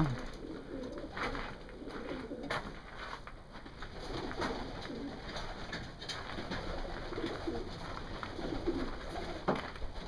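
Several domestic pigeons cooing in a wire-mesh loft, their low coos repeating and overlapping, with a couple of brief clicks.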